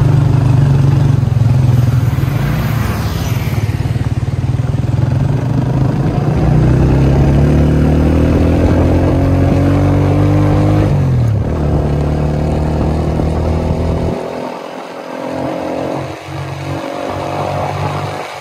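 Small motorcycle engine running under way, heard from the rider's seat. Its pitch climbs as the bike accelerates and drops sharply about eleven seconds in, as at a gear change. A few seconds before the end the engine sound falls away and gets quieter, as the bike eases off and slows.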